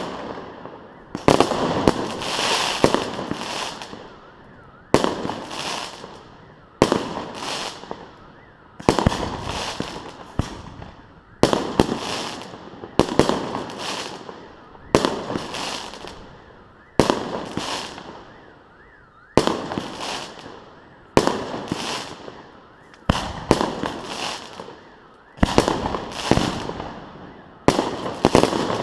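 Fireworks display: aerial shells bursting one after another, a sharp bang about every two seconds, each trailing off in a fading rumble.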